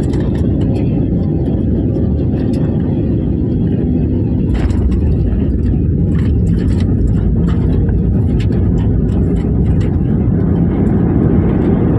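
Cabin noise of an Airbus A320-family airliner rolling out on the runway after landing: a loud, steady low rumble of engines and wheels, with short rattling clicks from about four and a half seconds in and the rumble growing a little louder near the end.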